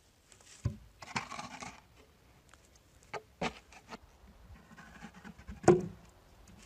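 Handling noises: a knock, a short scraping rub, a few sharp clicks, then a louder knock near the end.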